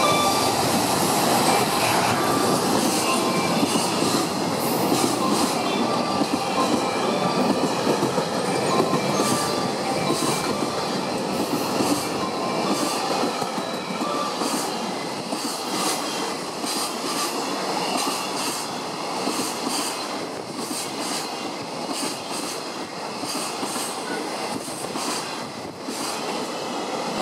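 Container freight train's flat wagons rolling past behind an EF210 electric locomotive: a steady rumble and rattle of wheels on rail, with sharp wheel clicks over the rail joints from about four seconds in. The sound slowly grows quieter.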